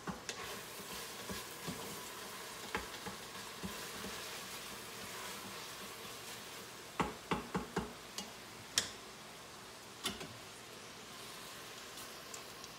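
Browned ground beef sizzling faintly in a hot Instant Pot stainless steel inner pot, with a quick run of sharp metal clinks and knocks about seven to nine seconds in and another about ten seconds in as the pot is handled.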